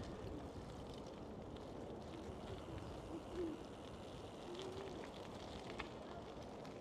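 Pigeons cooing a few times in short low, wavering phrases over faint outdoor ambience.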